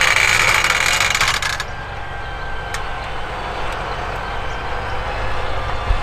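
Claas Axion 960 tractor pulling an 8-furrow on-land plough with packer: a steady low engine drone, with a loud burst of rattling and a high whine in the first second and a half, and a single sharp click about three seconds in.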